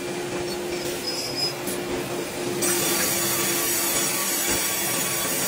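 Sawmill log carriage rolling along its rail while the saw runs and cuts into a pine log: a steady mechanical hum under a continuous sawing hiss, which grows brighter about two and a half seconds in.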